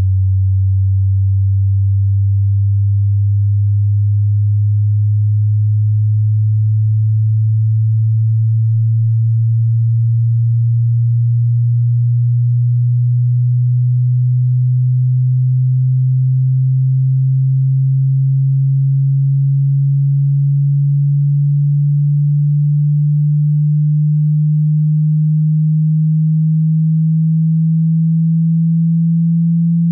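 A pure sine-wave hearing-test tone, very low-pitched, gliding slowly and steadily upward in pitch. It dips briefly four times, roughly every six to seven seconds.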